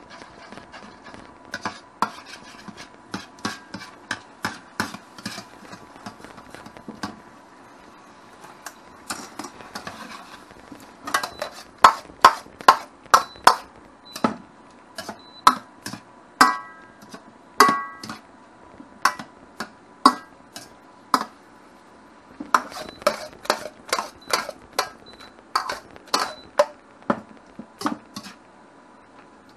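Utensils knocking and clinking against dishes: irregular sharp taps in bursts, some ringing briefly.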